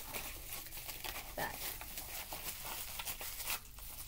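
Clear plastic packaging crinkling and rustling as it is handled, a dense run of small irregular crackles.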